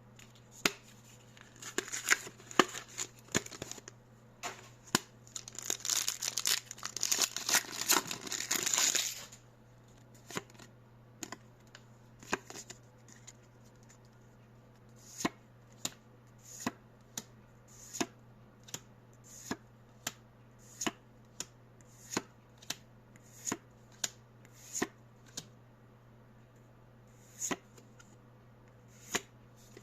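A Pokémon TCG Mega Evolution booster pack being opened: the foil wrapper is torn and crinkled for about nine seconds, then the cards are flicked through one at a time, a short sharp snap roughly every second.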